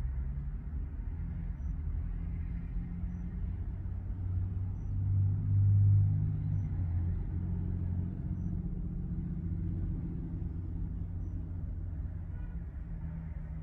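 Low rumble of vehicle engines at a truck stop, swelling to its loudest about five to six seconds in as a vehicle moves close by, then settling back to a steady idle-like rumble.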